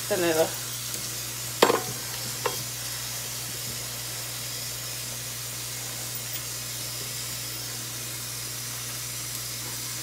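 Kitchen tap running into a steel pot of water holding pumpkin pieces, a steady splashing hiss. Two sharp knocks come a little under two seconds in and again about half a second later.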